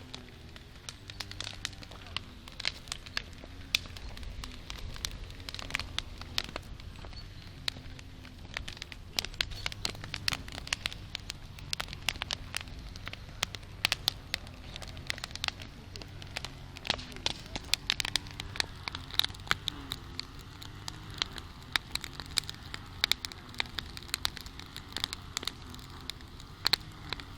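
Campfire burning, wood crackling and popping in quick, irregular sharp snaps over a low steady rush of flame.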